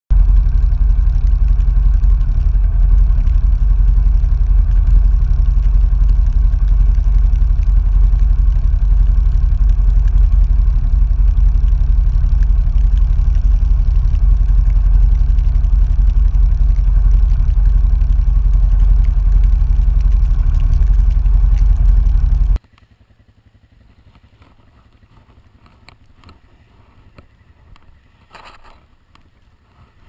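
2011 Suzuki King Quad 750 ATV's single-cylinder engine running loud and steady at speed, heavy with deep low rumble. It cuts off abruptly about three-quarters of the way through, leaving faint wind noise with a few light knocks near the end.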